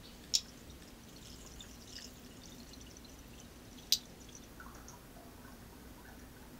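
Faint dripping of ash-water lye running through a coffee filter in a funnel, with two sharp handling clicks, one just after the start and one about four seconds in.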